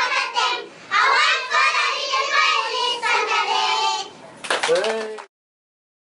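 A group of young children singing together, with two short breaks between phrases; the singing cuts off suddenly about five seconds in.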